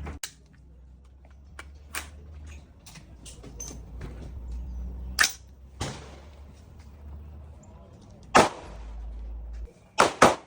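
Gunshots at a shooting range: sharp shots at uneven intervals, the loudest a little past five seconds in, about eight seconds in, and a quick pair near the end, with fainter cracks from other shooters between them.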